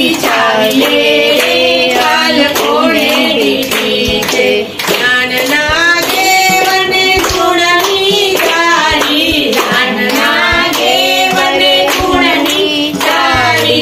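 Women singing a Hindu devotional song together, unaccompanied by instruments, with hand claps keeping time.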